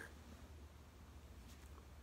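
Near silence: room tone with a faint low hum.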